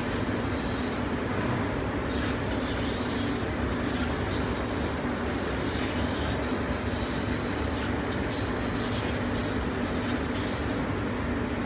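Golden Laser FlyCut fabric laser cutting machine running as its head cuts printed fabric: a steady mechanical hum with a low drone.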